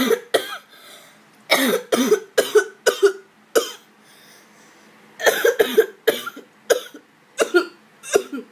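A person coughing repeatedly: a dozen or so short, sharp coughs in several bouts, with brief pauses between them.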